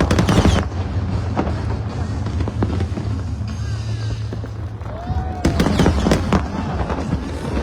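Fireworks exploding: a quick cluster of sharp bangs at the start and another cluster of bangs about five and a half seconds in, over a steady low rumble.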